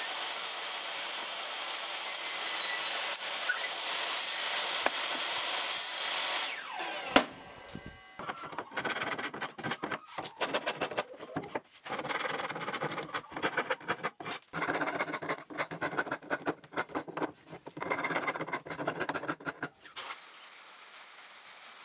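A table saw cuts through a wooden board with a steady high-pitched noise that stops about seven seconds in, followed by a sharp click. Then come rapid, irregular rubbing strokes of hand work on wood, which stop near the end.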